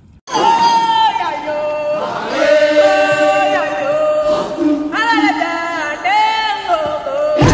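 Background music: voices chanting in long held, sliding notes, starting after a brief silence right at the start.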